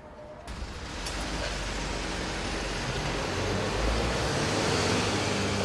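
Street traffic noise: a motor vehicle running close by, a steady rushing sound with a low engine hum. It starts suddenly about half a second in and grows a little louder.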